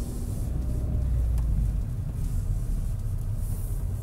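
Car's engine and road noise heard from inside the cabin while driving: a steady low rumble that swells a little about a second in.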